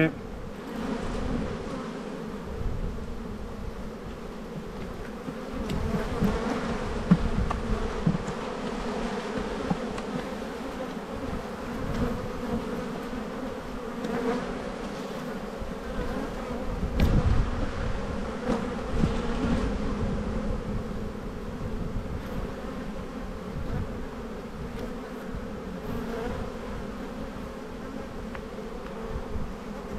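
Honeybees from an opened hive humming steadily, a dense buzz of many wings, over a low, uneven rumble. A few sharp knocks break in, the loudest about 7 and 17 seconds in, as wooden frames are handled.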